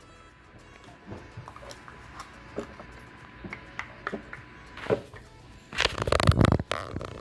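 Background music with scattered light clicks, and about six seconds in a loud rush of noise lasting about a second: sugar being scooped with a measuring cup and poured into a blender.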